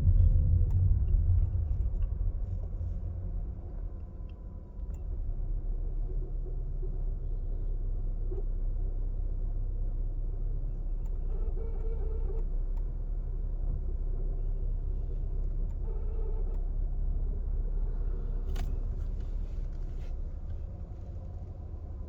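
Low, steady engine and road rumble inside the cabin of a 2022 Volkswagen Polo 1.4 TSI with a seven-speed DSG gearbox, moving slowly in traffic. A single sharp click comes near the end.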